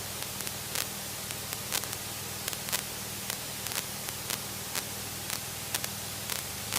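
Steady hiss of a cockpit intercom feed with the low hum of a piston aircraft engine idling underneath, broken by irregular sharp clicks.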